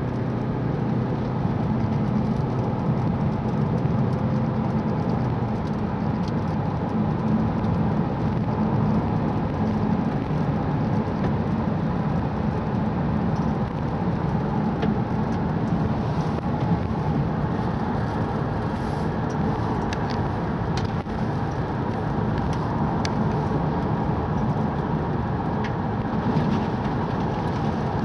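Steady engine and road noise inside a car's cabin while driving in the rain, with a few faint ticks scattered through the second half.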